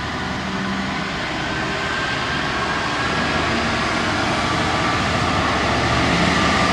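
Class 66 diesel-electric locomotive with its two-stroke V12 engine hauling a container freight train towards the listener, the engine and train noise growing steadily louder as it approaches.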